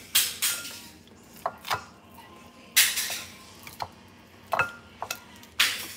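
Metal kitchen tongs clinking and tapping against a glass mixing bowl while raw pork chops are turned in their seasoning. There are several sharp clinks, some ringing briefly, and a few short scraping bursts.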